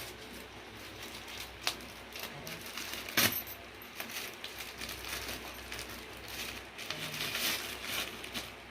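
A parcel being opened by hand: rustling and crinkling of the packaging, with scattered sharp clicks and one louder clack about three seconds in.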